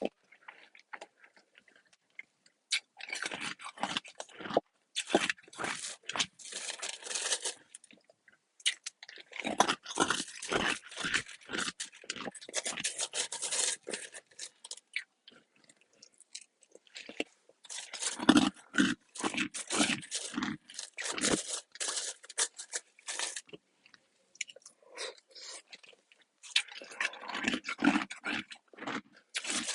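A person chewing pellet ice, in runs of crisp, rapid crunches. The crunching comes in four spells separated by short pauses.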